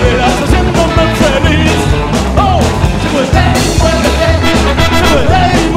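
Rockabilly band playing a song, with a singing voice over bass, guitar and drums.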